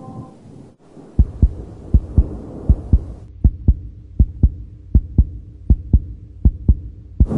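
Heartbeat sound effect: low lub-dub thumps in pairs, a little under a second from one pair to the next (about 80 beats a minute), starting about a second in, over a low steady hum.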